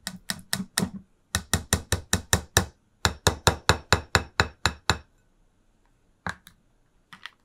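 Rapid knocking of a measuring cup against a mixing bowl to get the sour cream out, about six sharp knocks a second in three runs, stopping about five seconds in; a few faint clicks follow near the end.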